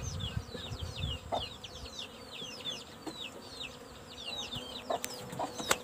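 Birds peeping and chirping: a steady stream of short, high, quickly falling notes, several a second, with a couple of sharp clicks near the end.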